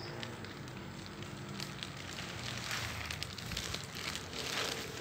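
Clear plastic bags of rice being handled, crinkling and rustling; the crackle grows denser from about a second and a half in.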